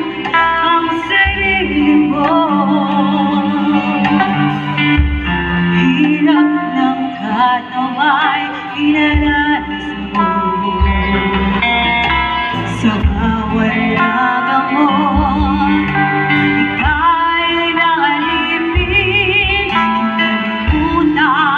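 A woman singing a slow song into a handheld microphone, with vibrato on held notes, over instrumental accompaniment with guitar and bass.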